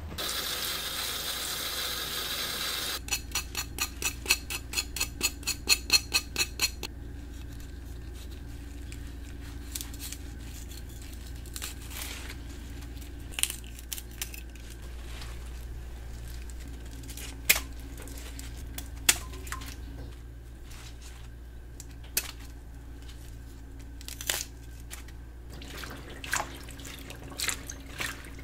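Hands trimming leafy greens with a knife at a kitchen sink: scattered small clicks and snaps over a low steady hum. Near the start, a brief rush of noise gives way to a run of about a dozen sharp, even strokes, roughly three a second.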